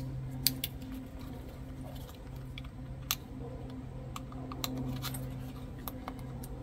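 Small scattered clicks and rustling of gear being handled and rummaged out of a military-surplus bread bag, over a steady low hum.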